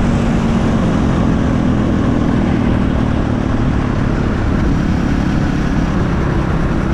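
KTM 450 supermoto's single-cylinder engine running steadily through a full HGS aftermarket exhaust.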